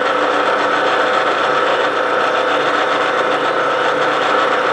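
Central Machinery metal lathe running steadily, its motor and gear train whining, while a twist drill in the tailstock chuck bores into the spinning metal workpiece and peels off a long spiral chip.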